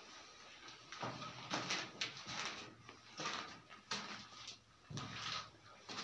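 Footsteps shuffling and scuffing on a gritty, dusty floor, an irregular scrape about once or twice a second.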